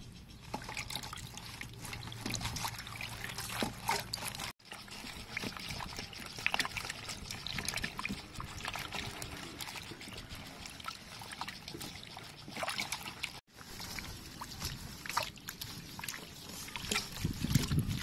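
Hands swishing and rubbing mustard greens in a metal basin of water: splashing, sloshing and dribbling water. The sound drops out briefly twice.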